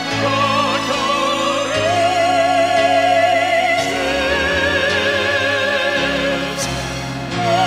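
Background music: long melody notes held with a wide vibrato, likely a singing voice, over a sustained accompaniment whose chords change every second or two.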